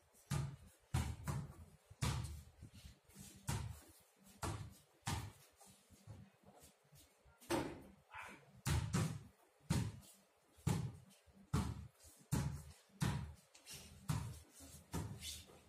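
Basketball dribbled on a paved floor: a string of sharp bounces, one or two a second, in an uneven rhythm with a short lull around the middle.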